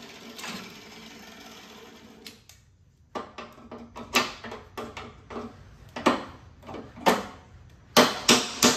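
A steady whir that stops about two seconds in. Then a series of sharp metal knocks during work on a steel mower deck, irregular at about one a second, with three quick ones near the end.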